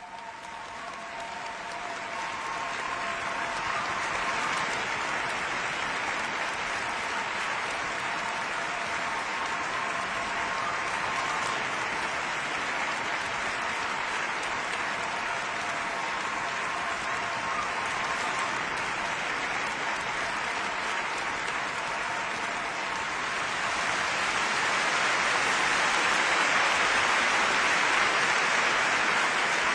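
Large concert-hall audience applauding steadily, the clapping growing louder over the last few seconds.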